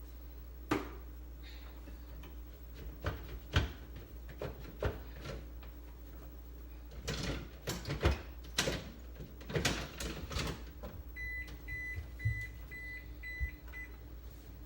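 Refrigerator door-open alarm beeping, a run of about seven short high beeps a little over two a second near the end: the alarm for a door left open too long. Before it come knocks and clatter from things being handled inside the open fridge.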